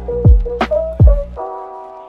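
Background music: soft keyboard chords with a beat of two deep drum hits and a sharp snare-like hit. The drums and bass drop out about a second and a half in, leaving the keys alone.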